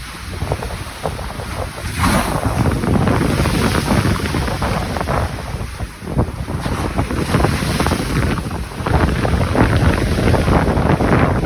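Large sea waves crashing against a concrete parapet, loud rushing surf that swells about two seconds in and again in the second half, with wind buffeting the microphone.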